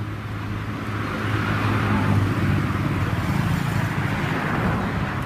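A motor vehicle's engine running steadily, with road or traffic noise that swells louder through the middle.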